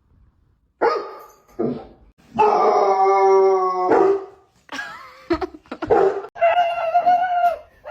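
A dog howling and barking: a couple of short calls, then a long steady howl, a few choppy barks, and another drawn-out howl near the end.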